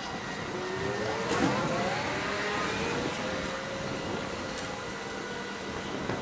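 Rooftop HVAC unit running, its fan blowing with a steady whoosh and hum. A motor whine rises in pitch over the first couple of seconds, then holds steady.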